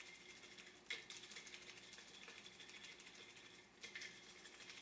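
Near silence, broken twice by brief faint rattles of a spice shaker of onion powder being shaken over raw steaks, about a second in and again near four seconds.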